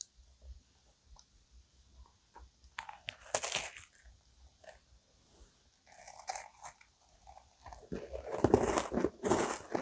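A crunchy bite into a chocolate Digestive biscuit topped with vanilla ice cream cake, followed by close-miked crunchy chewing that is loudest near the end.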